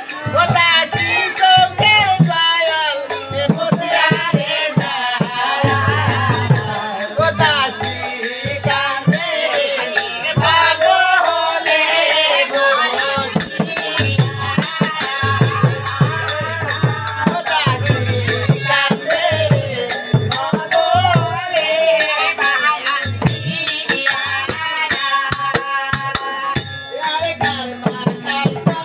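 Bishohori pala folk-theatre music: a performer's voice singing a Bengali song over live percussion, with sharp, regular strikes and low drum beats running under the voice.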